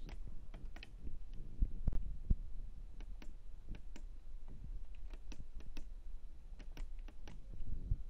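Push buttons on the control panel of a Miele W5964 washing machine clicking as they are pressed one after another, about a dozen sharp, irregular clicks over a low hum.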